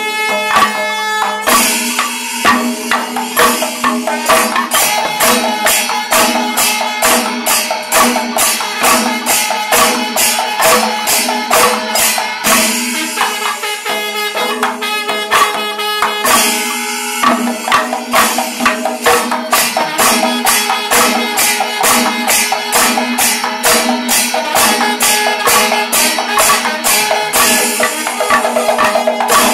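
Kerala temple percussion ensemble: chenda drums beaten with sticks and ilathalam (bronze hand cymbals) clashing in a fast, dense rhythm. The rhythm thins briefly a couple of times before picking up again.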